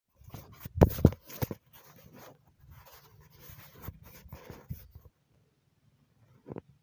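Close, scratchy rustling of chilli seedlings and soil being handled as they are pulled up by hand, with a few loud knocks about a second in. The rustling stops about five seconds in, followed by two short knocks.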